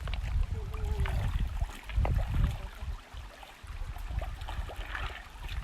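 Shallow river water running and splashing, with irregular low rumbling and scattered small knocks.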